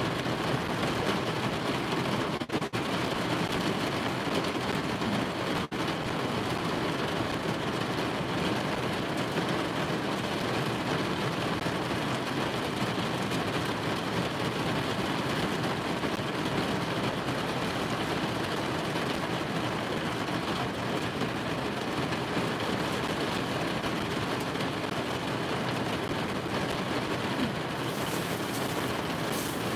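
Heavy rain drumming steadily on the roof of a car, heard from inside the cabin.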